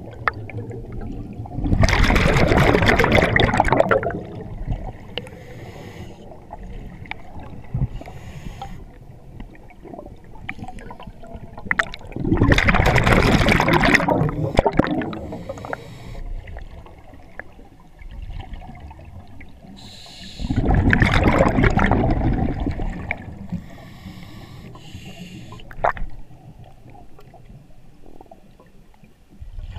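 Scuba diver breathing underwater through a regulator: three loud, bubbling exhalations of two to three seconds each, about eight to nine seconds apart, with quieter hiss and bubbling between them.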